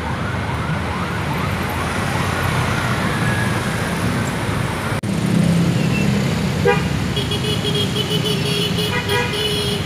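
Busy road traffic of motorbikes and cars, with a vehicle horn held for about three seconds from about two-thirds of the way through.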